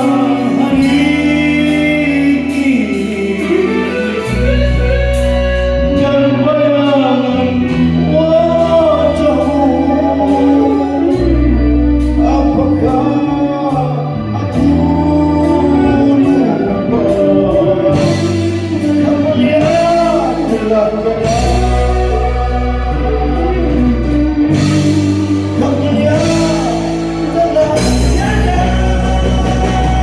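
Live rock band playing: a male singer over electric guitars, bass guitar and a drum kit keeping a steady beat on the cymbals.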